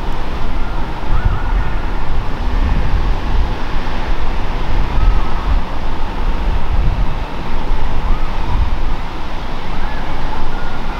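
Strong wind buffeting the microphone in gusts, a loud uneven low rumble, with faint high tones gliding up and down now and then.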